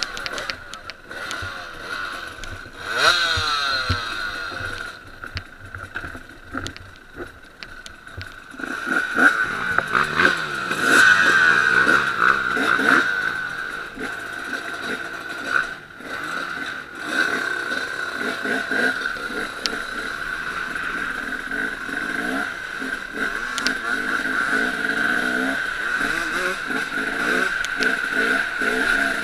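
Off-road dirt bike engines running and revving, heard from on board one of the bikes, the pitch rising and falling repeatedly with throttle and gear changes over a steady high whine.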